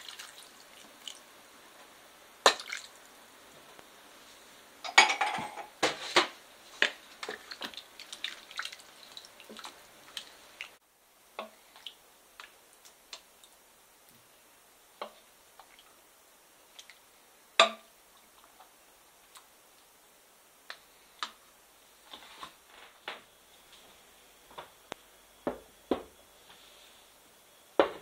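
Kitchen handling sounds: a brief pour of water into a rice cooker's inner pot, then scattered clicks and knocks of a plastic ladle against the pot and bowls as stew is stirred and served, bunched about five seconds in.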